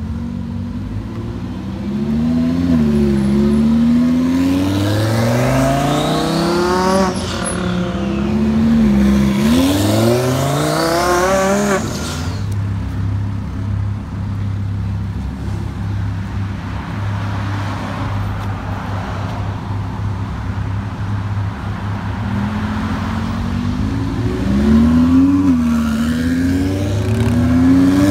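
Twin-turbocharged Lamborghini Huracán V10 revving and accelerating in several climbing pulls, the pitch dropping back between them. It then runs steadily at a lower pitch for about ten seconds before revving up again near the end.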